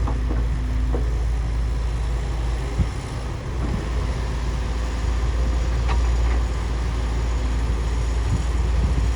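Bulldozer's diesel engine running with a steady low rumble, with a sharp knock about three seconds in and a fainter click near six seconds.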